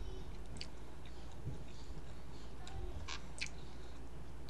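Chewing a soft fish taco with the mouth closed: a few short, wet mouth clicks, two of them close together about three seconds in, over a steady low hum.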